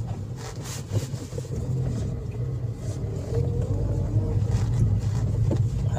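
Toyota Vios engine and road noise heard from inside the cabin while driving in second gear: a steady low drone that grows a little louder about halfway through.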